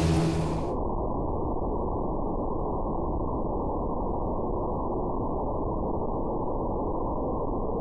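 The twin-turbo 5.3 LS's steady engine note on the dyno stops about half a second in. What follows is an even, dull, heavily muffled rumble with no clear engine note and all the high sound gone.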